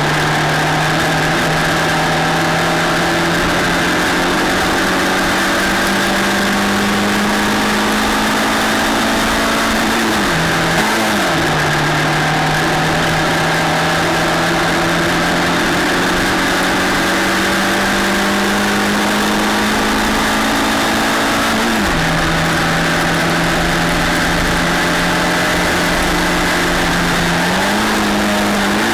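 A Formula LGB F4 single-seater racing car's engine running hard, heard onboard. Its pitch climbs slowly in each gear and drops abruptly at gear changes about ten seconds in and again about twenty-two seconds in. It rises sharply near the end on a downshift.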